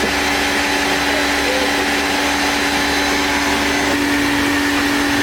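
A steady electric motor runs with an even hiss and a constant hum that does not change pitch. The hum grows a little stronger about four seconds in.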